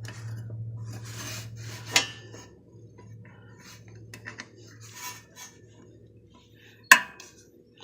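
Small metal clinks and scraping as a battery cable terminal is fitted onto a lawn-mower starter's terminal post, with a sharp metallic click about two seconds in and a louder one near the end. A low steady hum runs under the first couple of seconds.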